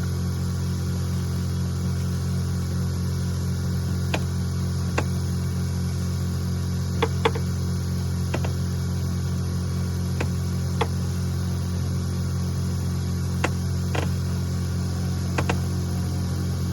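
A steady low mechanical hum with sharp knocks at irregular intervals, about nine in all, a pair of them close together about seven seconds in.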